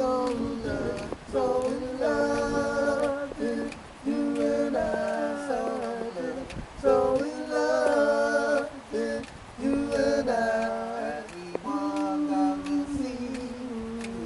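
Male vocal trio singing a cappella in close harmony, in held phrases of a second or two with short breaks between.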